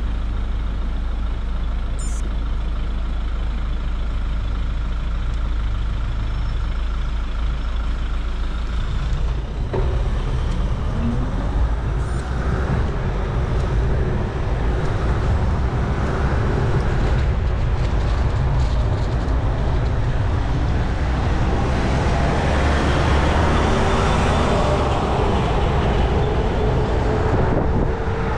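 Road traffic passing close by, motor vehicles' engines and tyres on the road, heard from a bicycle with wind rumbling on the camera's microphone. The low wind rumble is heaviest for about the first ten seconds, after which the traffic noise fills in louder and broader.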